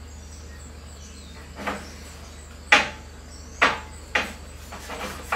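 A few short clicks and light knocks as a steel hydraulic line is handled and cleaned on a steel welding table, over a steady low hum.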